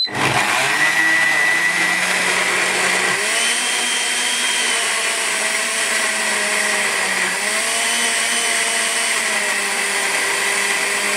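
Countertop jug blender running on its puree setting, churning a thick banana-and-zucchini puree. The motor runs loud and steady, its pitch sagging and recovering a couple of times as the load shifts.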